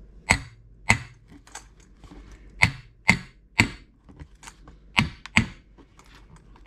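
A heavy metal coffee-machine part knocking against a glass orchid flask about seven times, in sharp single blows and pairs, to crack it open; the glass has not yet given way.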